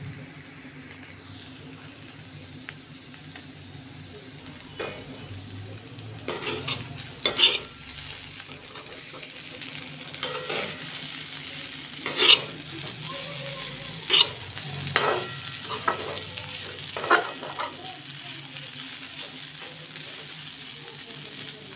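Potato sticks sizzling in oil in a kadai while a perforated metal spatula stirs them, scraping and clinking against the pan in a run of sharp strokes between about six and seventeen seconds in. A steady soft sizzle runs underneath.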